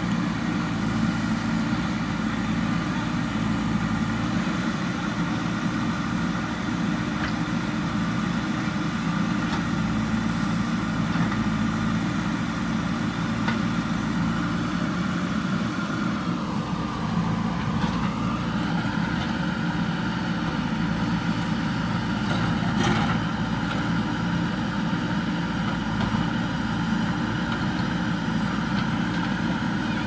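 JCB 3DX backhoe loader's diesel engine running steadily while the backhoe works. About halfway through the engine note sags in pitch for a couple of seconds as the hydraulics take load, then recovers; a single sharp knock follows a few seconds later.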